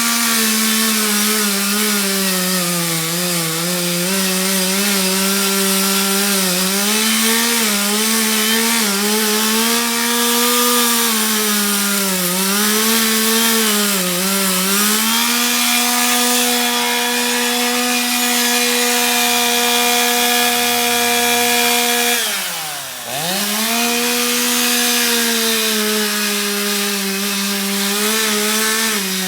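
Chainsaw running at high revs, its pitch sagging and recovering again and again as the chain bites into wood, then holding steady. Late on the revs drop sharply almost to idle and climb straight back up.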